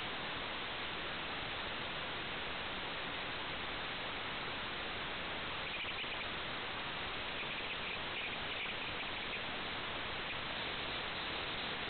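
Steady static hiss from an analog video link that is receiving no clear signal, with faint high tones coming and going in the middle.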